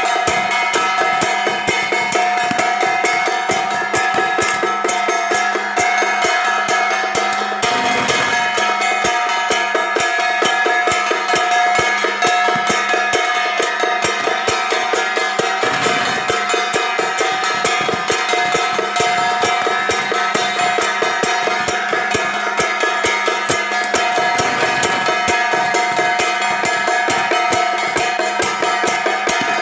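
Traditional Taiwanese procession percussion: a drum beaten in a rapid continuous roll, with metal gongs and cymbals ringing steadily over it.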